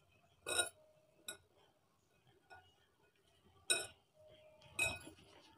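A few light clinks on a glass mixing bowl as a hand mixes flour and ghee in it, with four short knocks scattered through a quiet stretch.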